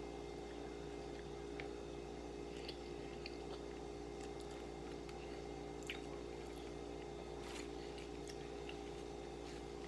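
Faint close-up chewing and soft mouth clicks from eating baked chicken, a few scattered smacks, over a steady low electrical hum.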